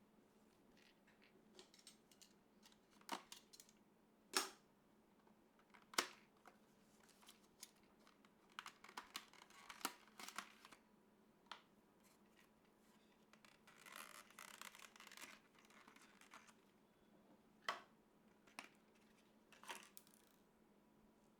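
Computer parts and packaging being handled during a PC assembly: irregular sharp clicks and taps of plastic and metal parts, the loudest two about four and six seconds in, with a stretch of rustling packaging about two-thirds of the way through.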